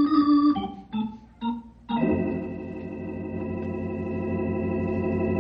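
Organ music bridge: a held chord fades into a few short chords, then about two seconds in a long sustained chord that slowly swells.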